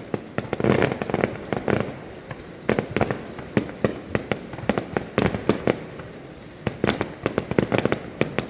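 Fireworks going off in quick clusters of sharp bangs and crackles. They ease off about four seconds in and pick up again a few seconds later.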